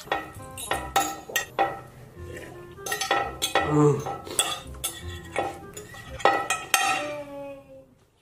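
A metal fork clinking and scraping against a plate of noodles, in many irregular sharp clinks that ring briefly. The sound fades out near the end.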